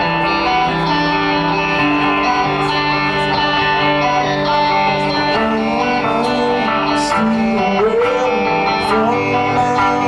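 A live band's amplified guitars playing sustained, ringing chords, with one note wavering in pitch about eight seconds in.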